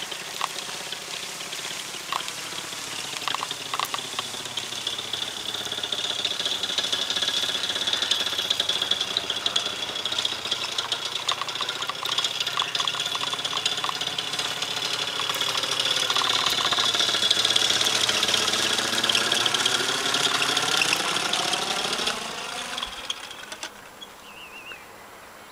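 Paramotor's two-stroke engine and propeller droning overhead, the pitch slowly bending as it flies past. It grows louder towards the middle, then drops away sharply near the end.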